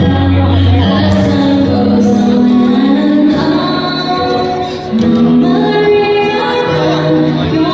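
Music: a song with a woman singing held notes over instrumental accompaniment.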